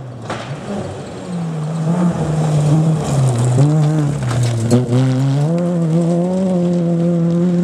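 Ford Fiesta rally car's engine on a gravel stage: the engine note dips and rises several times as it brakes into a tight bend, with gravel crackling under the tyres as it slides past, then rises steadily as the car accelerates away.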